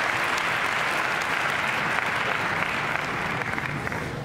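Large audience applauding, a dense steady clapping that thins slightly near the end.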